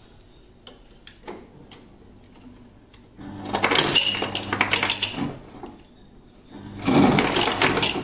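Refrigerator door ice dispenser running twice, each time for about two seconds: a steady motor hum with ice cubes clattering into a stainless steel cup. A few light clicks come before the first run.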